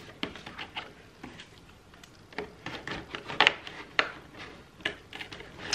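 A cardboard advent calendar door being pried and scraped at with a wooden stick: a series of short scrapes and knocks, cardboard rubbing, the loudest about three and a half seconds in.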